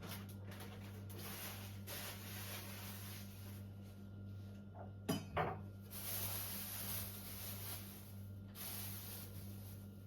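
Kitchen work at an open refrigerator: stretches of soft rubbing and wiping noise as things are handled and put away, with two sharp clinks close together about five seconds in, over a steady low hum.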